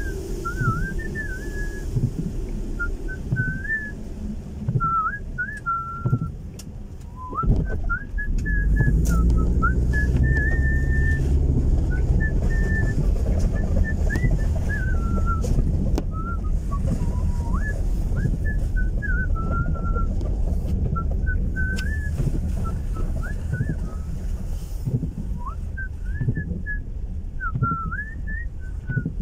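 A person whistling a wandering tune inside a car's cabin, over the low rumble of the car driving on a wet road, which grows louder about seven seconds in.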